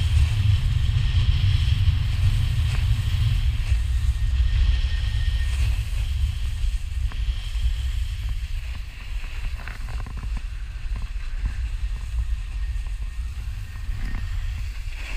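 Wind buffeting a helmet-cam microphone on a moving snowboarder, a low rumble, over the steady hiss and scrape of a snowboard sliding and carving on snow. The rumble eases off about halfway through.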